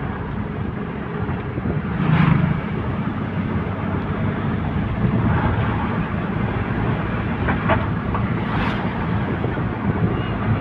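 Vehicle engine and road noise heard from inside the cab while driving: a steady low hum. Two brief knocks stand out, about two seconds in and again near the end.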